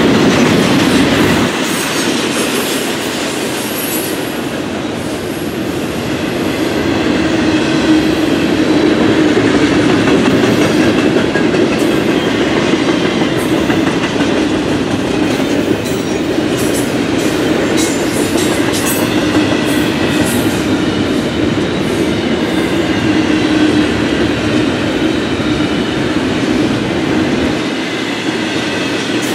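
Double-stack container well cars rolling past at close range: a steady rumble of steel wheels on rail, with scattered clicks and faint high wheel squeal.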